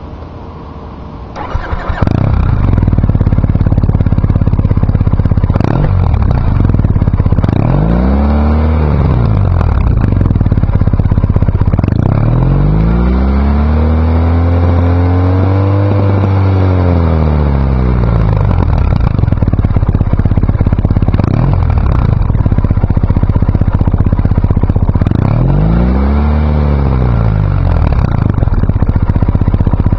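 Triumph Bonneville parallel-twin engine through TORs exhaust silencers, catching and starting up about two seconds in, then idling. It is revved three times: a short blip, a longer slow rise and fall in the middle, and another short blip near the end.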